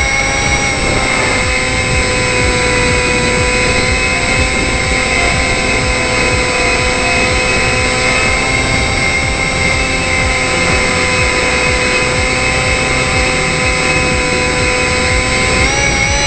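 Onboard sound of a Depron foam model plane in flight: its electric motor and propeller whine at a steady pitch over a rush of wind noise. The pitch rises near the end as the motor speeds up.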